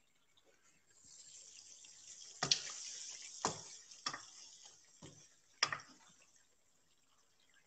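Chicken in oil and cream sizzling in a karahi with a hiss that swells about a second in and dies away near the end, while a spatula is worked through it, knocking against the pan about five times.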